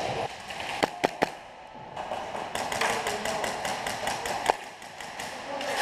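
Airsoft gunfire: a handful of sharp single shots or BB impacts, three in quick succession about a second in and another one later.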